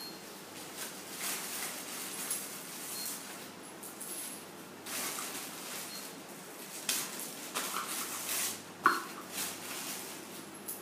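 Plastic packaging bags rustling and crinkling as small plastic fittings are unwrapped and handled, with light clicks of parts being set down; a sharp click about nine seconds in is the loudest.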